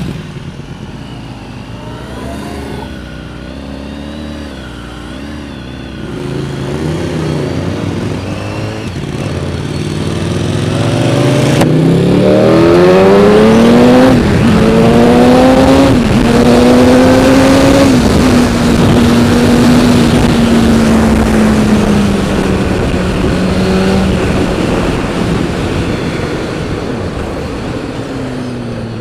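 BMW HP4's inline-four engine, heard from the rider's position through heavy wind noise. It runs at low revs at first, then accelerates hard from about a third of the way in, revs climbing through three quick upshifts. It then holds a steady high-speed note and eases off near the end.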